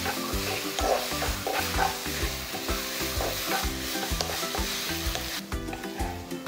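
Ground beef sizzling in a hot wok in its own fat while a wooden spatula stirs and scrapes it. The sizzle falls away near the end as the wok comes off the heat.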